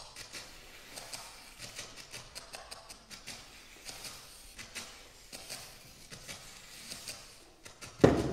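Sheets of paper played as percussion instruments: quiet, short, high-pitched paper rustles and snaps, a few a second at an uneven pace, with a sudden loud hit near the end.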